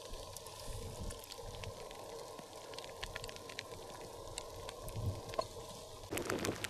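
Scattered ticks of water drops falling over a faint steady hiss. About six seconds in, a louder rush of outdoor noise cuts in abruptly.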